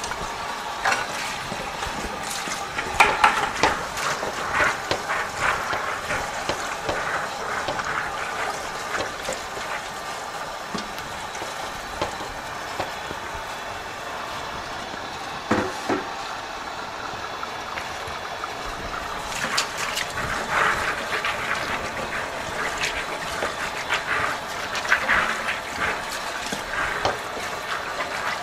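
Water running steadily from a garden hose, splashing into a plastic bucket and over a mesh bag of soaked pea seeds in a steel sink, with irregular splashes and handling knocks.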